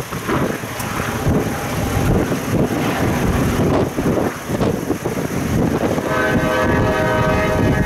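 Diesel freight train passing with wind buffeting the microphone, then about six seconds in the lead locomotive's air horn, on EMD GP38-2 FURX 5554, sounds a steady chord.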